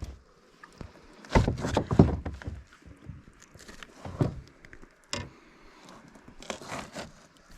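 Irregular knocks and thumps of gear being handled aboard a fishing kayak, the loudest cluster about a second and a half in, with a few more scattered knocks later.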